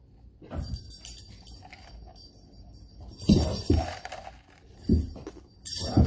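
Dog collar tags jingling in irregular bursts as several large dogs play and wrestle, with a few short low sounds from the tussle.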